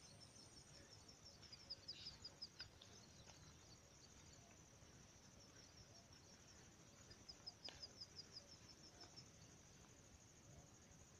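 Faint field ambience: a steady high insect chirring, with two short runs of rapid high chirps, one in the first few seconds and another past the middle.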